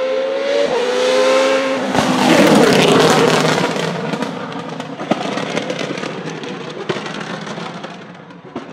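Formula Renault 3.5 V8 racing engine accelerating hard, its pitch climbing with a quick gear change. It then passes loud and close with a falling sweep and pulls away amid sharp pops and cracks, fading out.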